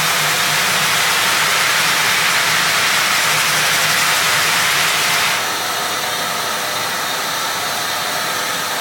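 Frank Spider floor sander running, its 36-grit zirconia abrasive grinding glue and coatings off timber: a steady hissing roar that turns a little quieter and less hissy about five seconds in.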